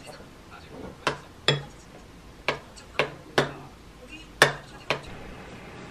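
Metal spoon clinking against a ceramic bowl as it scoops stew, about seven sharp, irregular clinks.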